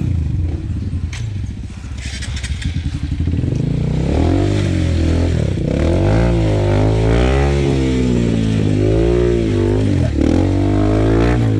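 Dirt bike engine revving up and down repeatedly while stuck in deep mud, straining as helpers push it. It runs lower for the first few seconds, then the revs rise and fall over and over.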